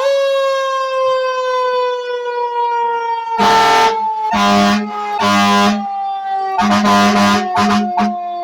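Fire truck siren wailing: it winds up fast, then falls slowly and steadily in pitch as it coasts down. Over it the truck's air horn honks in short blasts, three, then after a pause a longer one and two quick ones.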